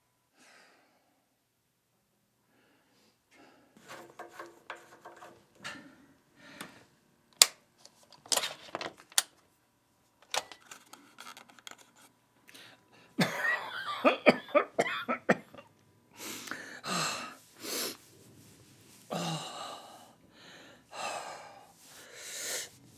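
An elderly man coughing in repeated fits, the loudest coming about halfway through. Earlier there are a few scattered clicks and small handling sounds.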